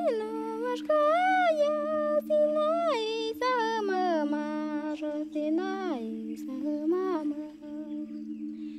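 A high voice hums a slow, wavering melody with pitch glides up and down, over a steady low drone. The voice fades out a little past halfway through, leaving the drone.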